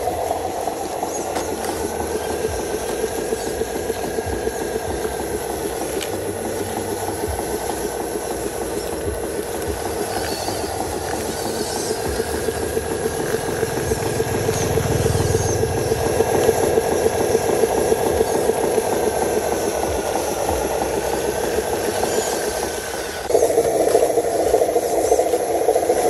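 Radio-controlled model truck's electric drive motor and gearbox running steadily with a whine and gear rattle as it hauls a trailer load of soil. Near the end it suddenly gets louder.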